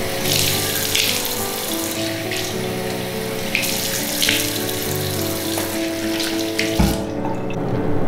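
Water running from a bathroom mixer tap into a ceramic washbasin, a steady hiss with louder splashy swells as hands go into the stream. The water sound cuts off abruptly about seven seconds in.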